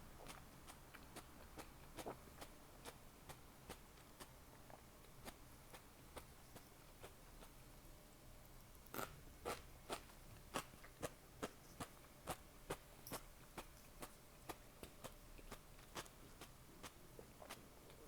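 Close-miked chewing of food: a steady run of short, moist clicking crunches, about two to three a second, louder for a few seconds in the middle.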